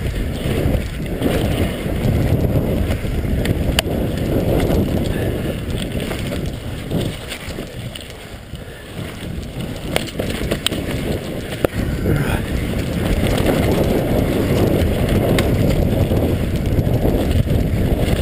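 Mountain bike descending a dirt trail: wind rushing over the on-board camera's microphone and the tyres rumbling on dirt, with a few sharp knocks as the bike hits bumps.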